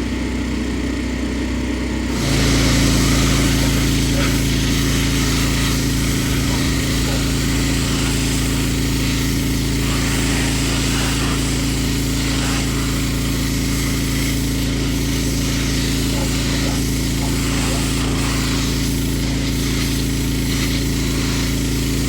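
Pressure washer running steadily. About two seconds in, a loud hissing spray starts and the machine's note changes, then both run on steadily under load.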